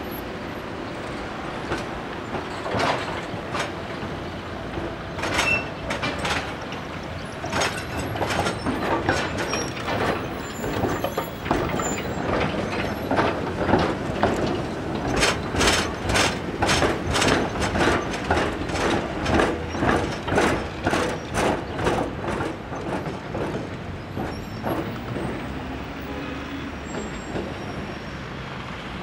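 Articulated tram running past on curved track, its wheels clattering over rail joints in a regular run of clicks that quickens to about two or three a second as it goes by, then thins out as it moves away.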